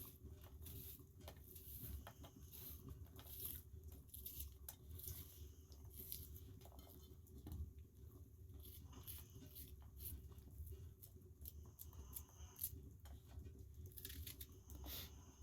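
Faint scattered clicks and rustling over a low steady hum.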